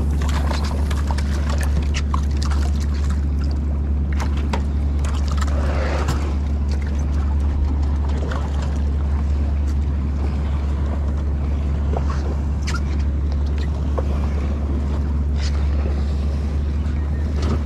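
Boat engine idling steadily, a low even hum, with scattered small clicks and knocks over it.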